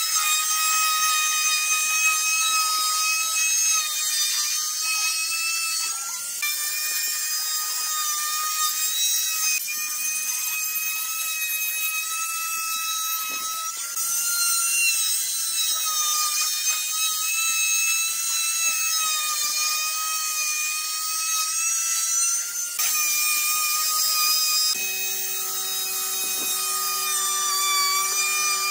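Electric router with an edge guide running at full speed and cutting a groove into a pine panel: a steady high-pitched whine with the hiss of the cut, which jumps abruptly a few times. About three-quarters of the way through, a lower steady hum joins in under the whine.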